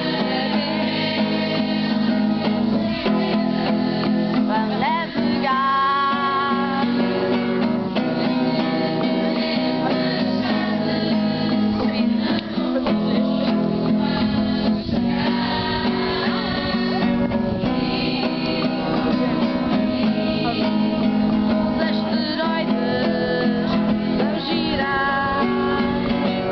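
A camp anthem sung by female voices in Portuguese over strummed acoustic guitar.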